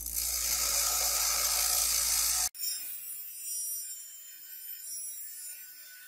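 Bench grinder wheel grinding a small steel bolt piece, a loud grinding hiss over the motor's hum, which cuts off suddenly about two and a half seconds in. After that comes a quieter, high-pitched whine and hiss from a rotary tool's cut-off disc cutting into the steel bolt.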